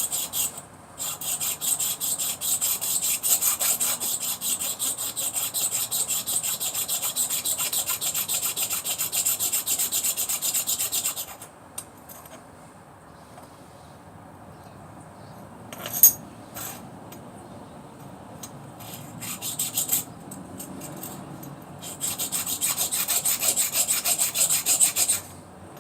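A metal hair clipper blade rubbed flat back and forth on an oiled sharpening stone: fast, even scraping strokes for about ten seconds, a pause with a single sharp click, then another run of strokes near the end.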